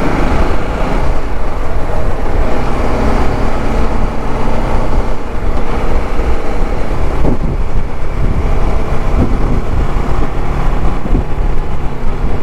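Motorcycle on the move: a TVS Apache RR 310's single-cylinder engine running steadily at road speed, under a loud, even road and wind rush.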